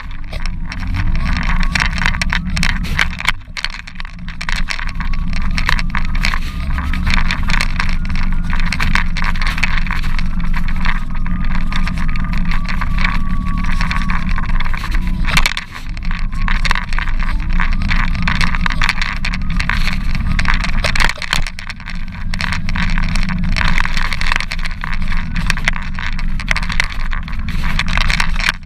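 Loud, steady low rumble laced with constant crackling and scraping, from a low-mounted camera jolting and rubbing on its mount as it moves along a paved sidewalk. The rumble briefly drops out a few times.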